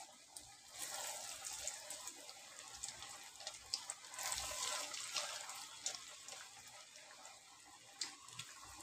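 Breaded chicken-and-potato cutlets deep-frying in hot oil: a steady sizzle with small crackles, swelling about a second in and again around four seconds. The oil is foaming up around them because of the egg coating.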